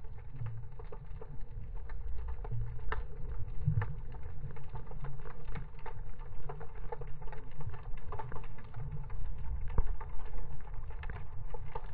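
Underwater ambience picked up by a submerged camera: a muffled low rumble of moving water with a dense, irregular crackle of short clicks.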